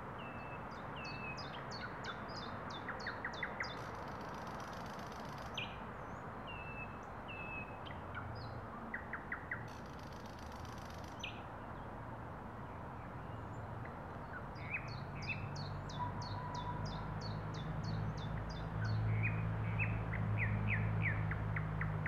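Thrush nightingale singing: phrases of fast repeated clicking notes and short whistles, with pauses between phrases. A low steady hum comes in during the second half and grows louder toward the end.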